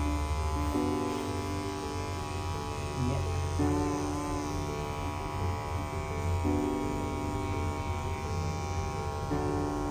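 Handheld electric pet clipper buzzing steadily as it shaves the fur off a kitten's belly, the clipping done before an abdominal ultrasound. Background music with long held notes changing pitch every few seconds plays over it.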